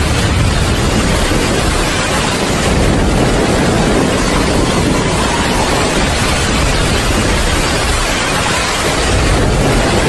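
Steady rain, a dense, even hiss of falling drops with no let-up or thunder.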